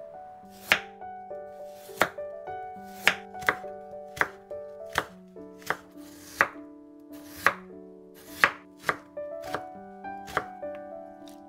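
Kitchen knife slicing raw potato on a wooden cutting board: about fourteen sharp knocks as the blade meets the board, unevenly spaced at roughly one a second. Background music plays beneath.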